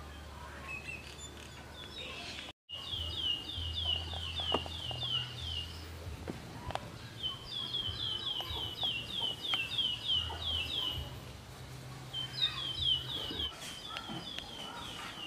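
A bird singing: runs of short, downward-slurred high chirps, about four a second, three runs of a few seconds each, over a low steady hum.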